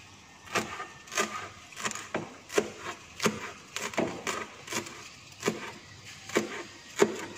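Cleaver chopping celery on a plastic cutting board: a steady run of sharp knocks, about one every two-thirds of a second, the blade cutting the stalks and leaves into coarse pieces.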